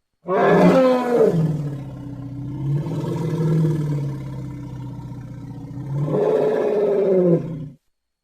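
Elephant call: a loud roar that drops in pitch into a long, low rumbling growl, rises again near the end, and stops abruptly.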